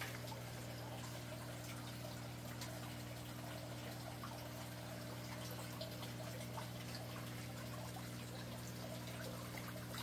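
Water trickling steadily in a small indoor aquaponics system, over a low steady hum.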